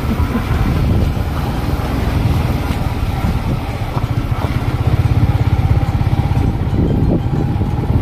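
Motorcycle engine running steadily while being ridden, a continuous low rumble.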